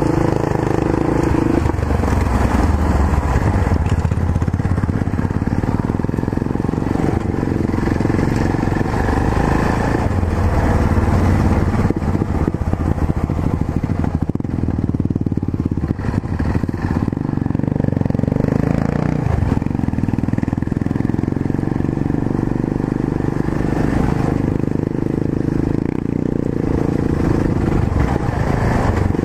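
Yamaha XT660Z Ténéré motorcycle's single-cylinder engine running steadily under way, its pitch rising and falling a little with the throttle.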